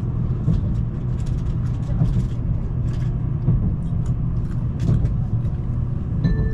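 Shinkansen bullet train running, heard inside the carriage: a steady low rumble with scattered light clicks and knocks. Bright chime-like tones start near the end.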